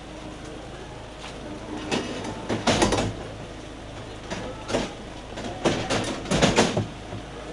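Metal stretcher tray pushed into the metal rack of a fire-brigade van's rear compartment, clanking and rattling. Two bursts of clatter come, about three seconds in and again around six seconds in.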